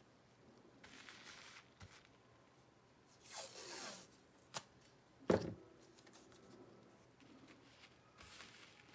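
Blue painter's tape pulled off the roll in two rips that fall in pitch, a drawn-out one about three seconds in and a shorter, louder one just past five seconds, with a click between them. Softer rustling of hands working the tape before and after.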